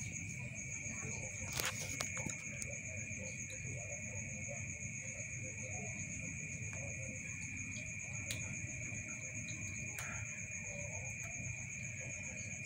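Steady high-pitched chirring of night insects in two constant tones, over a low background rumble, with a faint click about two seconds in and another near ten seconds.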